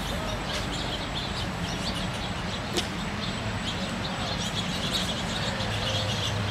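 Outdoor ambience: many small birds chirping, with short high calls scattered throughout, over a steady low background rumble.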